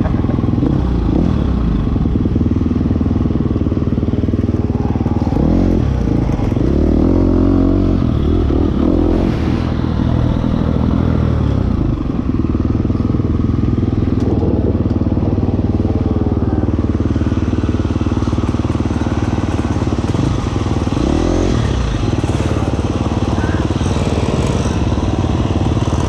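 Dirt bike engine running hard along a trail, heard close up from the rider's helmet camera, the revs dropping and rising again a few times as the rider works the throttle.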